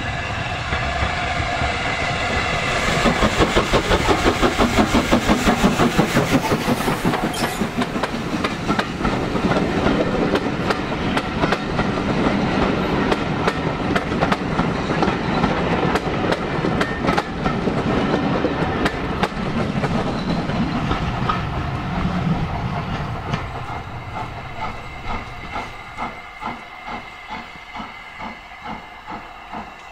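Metropolitan Railway E class 0-4-4T steam tank engine Met 1 working past with sharp regular exhaust beats, then its coaches rolling by with wheels clicking over the rail joints. Near the end it dies down to a quieter, slower regular beat.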